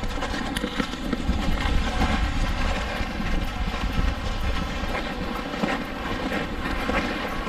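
Loaded pulk sleds dragging and scraping over crusty snow, a continuous rumbling drag, with the irregular crunch of snowshoe steps.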